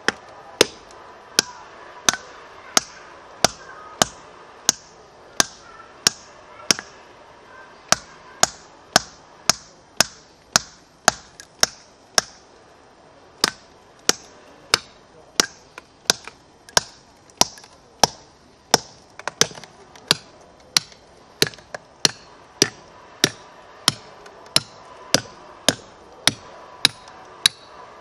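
A hand hammer striking steel plug-and-feather wedges set in drilled holes in a stone boulder, a sharp metallic strike about every two-thirds of a second, each with a short ring. The wedges are being driven in turn to split the stone, which cracks along the line of holes.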